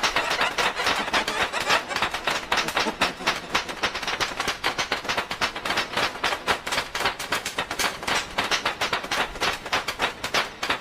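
Rapid, uneven clicking and tapping, many sharp strikes a second, keeping up without a break.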